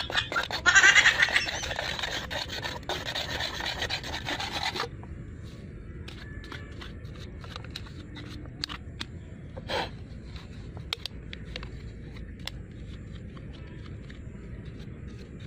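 The top of an aluminium Coca-Cola can rubbed back and forth against a stone, a rapid rasping scrape, grinding through the rim to take the lid off. The scraping stops abruptly about five seconds in, leaving only a few faint clicks.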